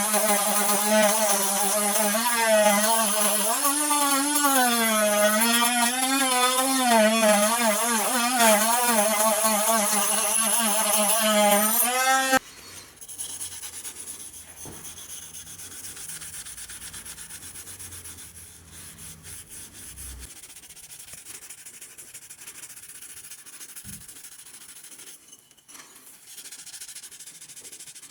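A small electric power tool runs with its pitch wavering up and down as it is pressed on the work, then stops abruptly about twelve seconds in. After that come quieter rubbing and scraping sounds, like hand sanding or filing.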